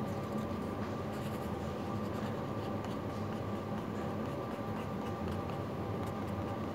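A fine-tip pen scratching across paper in many short strokes as a drawing is made, over a steady low background hum with a few steady tones.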